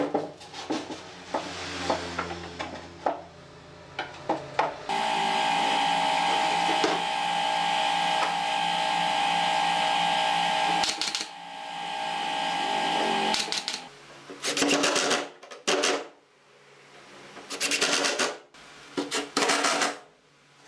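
Pallet-wood boards knocked and clattered as parts are set in place. Then a cordless driver runs steadily for about eight seconds, followed by two bursts of an impact driver's rapid hammering as screws are driven into the pallet-wood frame.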